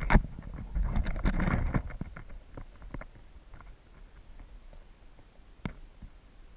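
Underwater sound in a gravel-bottomed trout stream, heard through a GoPro's waterproof housing. A loud knock comes right at the start, then a cluster of muffled knocks and clicks over about two seconds, then quieter water noise with one sharp click near the end.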